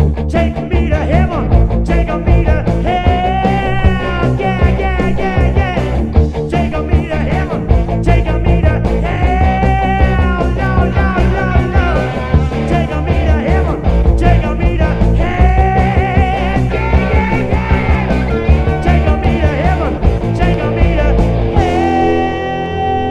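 Early-1980s hard rock recording: driving drums, distorted electric guitars and bass, with long wavering held notes every few seconds. Near the end the band stops on a final held chord that rings on.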